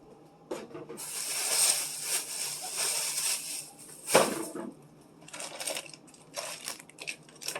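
Crinkling and rustling of plastic food packaging being handled for a couple of seconds, then a few short clinks and knocks as containers are set down.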